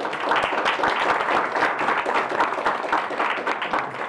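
Audience applauding, many people clapping steadily at once.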